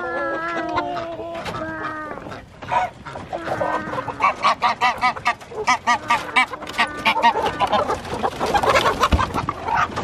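Chickens clucking in quick runs of short calls. There are a few longer, drawn-out calls in the first two seconds.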